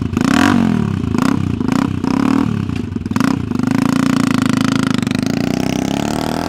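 Custom scooter's engine through a chrome exhaust pipe, revved in several quick throttle blips that rise and fall over the first three seconds or so, then running at a steadier, higher engine speed.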